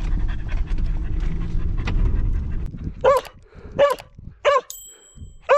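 Low steady rumble from inside the cab of a Wuling van driving on a desert road, which stops just under three seconds in. Then a border collie gives four short, pitched panting calls, with a brief electronic chime under the last two.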